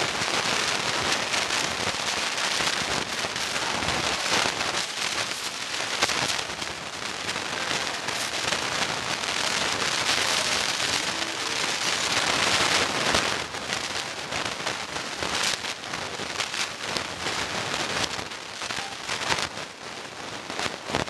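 Dense crackling and rustling of a handheld camera being handled, with fingers and clothing rubbing over the built-in microphone. The crackle is a bit quieter in the later part.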